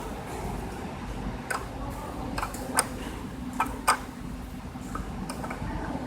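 A handful of sharp, irregular clicks and taps as the new temperature sensors and their fittings are handled and fitted in place, over a steady low hum.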